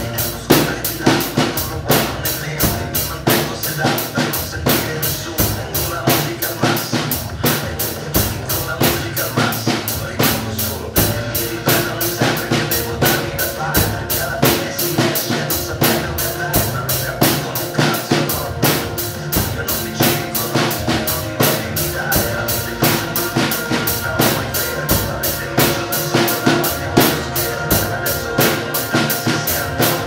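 Acoustic drum kit (Tamburo T5) played in a steady groove of kick drum, snare and cymbals, coming in at full strength right at the start, over a recorded pop song backing track.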